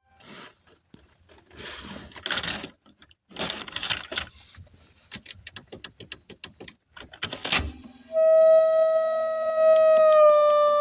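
Sonashi stereo's cassette section making a weird noise: a series of clicks and short rattles, then from about eight seconds a loud steady whining tone with overtones, like a held flute note, that dips slightly in pitch near the end.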